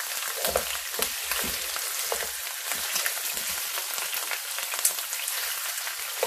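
Lamb leg pieces searing in hot oil in a nonstick frying pan: a steady sizzle full of small crackling spatters. In the first couple of seconds there are low knocks as a slotted spatula turns the meat.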